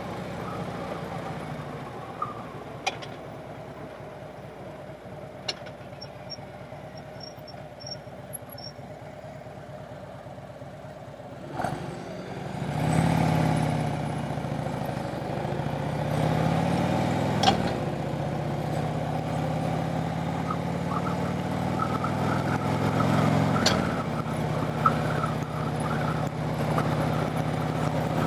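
Harley-Davidson V-twin motorcycle engine running while riding. It is quieter at first, grows louder about halfway through and then holds steady, with a few sharp clicks.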